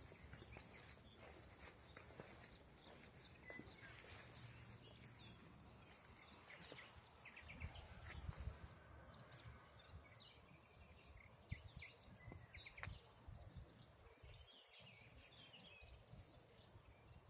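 Near-silent outdoor ambience: faint small birds chirping and trilling now and then, with a low rumble swelling briefly about eight seconds in.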